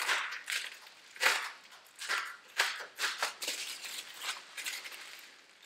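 Bubble wrap crinkling and rustling in short, irregular crackles as it is slit with a craft knife and turned over in the hands.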